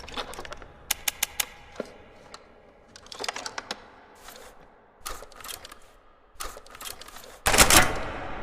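Shotgun sound effect: several clusters of sharp mechanical clicks and rattles, then a single loud shot about seven and a half seconds in, with a long fading tail.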